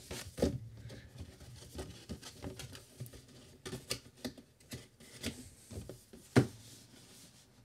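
Cardboard packaging being handled: rustling, scraping and light taps as a printed cardboard sleeve is slid off an inner box, with a sharp knock about six seconds in.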